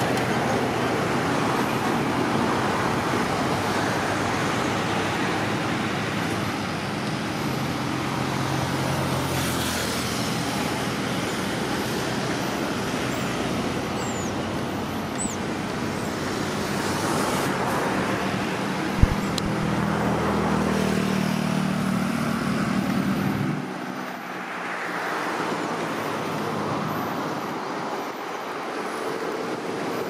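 Steady road traffic noise with the low hum of a vehicle engine, which drops away about three quarters of the way through. A single sharp click a little under two-thirds of the way in.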